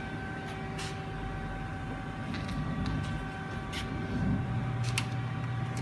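Steady hum of a powered-up CNC lathe standing idle, with several fixed tones over a low rumble and a few light clicks.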